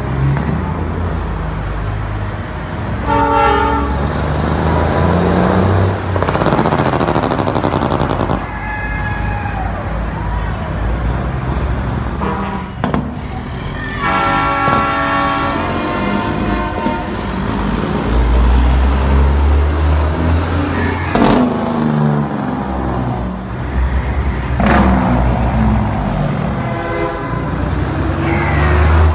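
Street traffic: vehicle engines running and passing, with a heavy low engine rumble about two-thirds of the way through and a few short horn-like tones.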